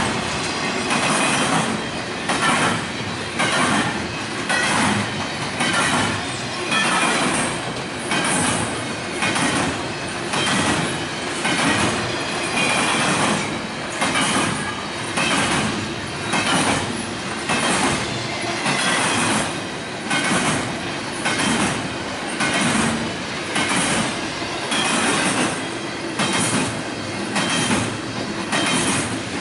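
Railroad cars rolling past on the track, their wheels clacking over the rail joints in a steady rhythm of about one beat a second.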